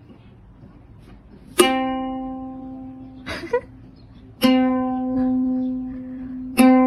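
Music: a plucked string instrument sounds the same note three times, about a second and a half in, about four and a half seconds in, and near the end. Each note rings out and fades slowly.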